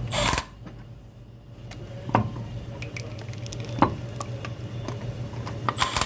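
Hand tools working on the car's wheel hardware: a short ratcheting rattle at the start, then scattered metallic clicks and taps, over a steady low hum.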